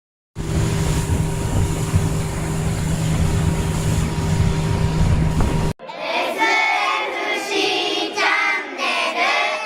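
A steady mechanical drone with a low hum, cut off abruptly about five and a half seconds in, followed by a high voice singing.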